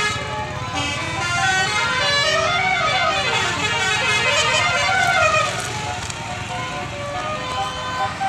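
A bus's Basuri telolet horn playing a melody of several horn tones, with the pitches sliding up and down in the middle, over the low rumble of the bus's engine.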